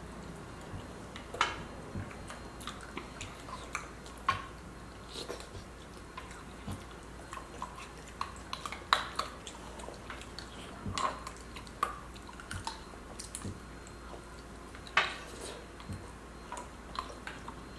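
Spoons clinking and scraping against small glass baby-food jars: irregular sharp clicks and taps, with a few louder clinks scattered through.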